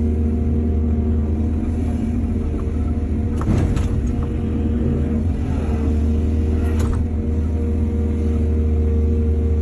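Excavator's diesel engine running steadily, with two short clanks or scrapes, one about three and a half seconds in and one about seven seconds in.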